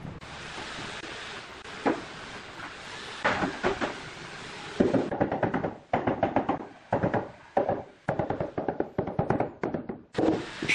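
A steady hiss with a couple of single knocks, then from about five seconds in a quick, irregular run of knocks, several a second, as a large ceramic tile panel is tapped and set into place on the side of a brick counter.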